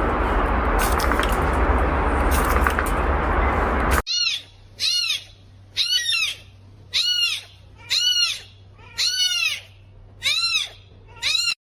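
A loud rushing noise with scattered clicks that cuts off about four seconds in, followed by a cat meowing eight times, high-pitched and about a second apart.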